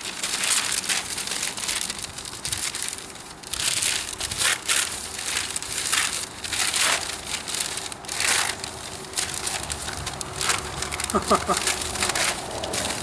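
White wrapping being unrolled and pulled off a bow by hand: continual crinkling and rustling in irregular loud bursts.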